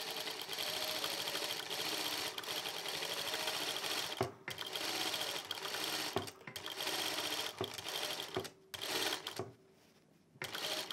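Juki DDL-900B industrial lockstitch sewing machine running at a steady speed, stitching fabric through a gathering foot. It stops briefly several times and goes quiet for about a second near the end before starting again.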